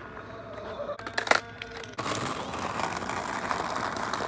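Skateboard clattering on asphalt: a cluster of sharp knocks a little over a second in, then a steady rough rolling noise from about two seconds in.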